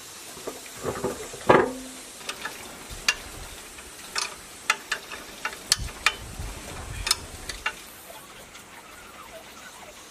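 Hand-tool work on steel: scattered metallic clicks and clinks of a wrench on mounting bolts, with one louder clank about a second and a half in that rings briefly, and a few dull knocks in the middle.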